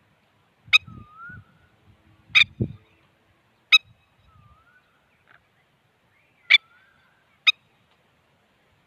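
Agitated parent bird giving short, sharp alarm calls, five in all and irregularly spaced, with a few faint rising squeaky notes between them.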